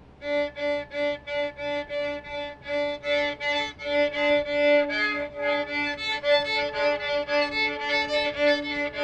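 Violin bowed in short, repeated strokes: about three notes a second on one low note at first, then quicker strokes with a few higher notes joining in from about halfway.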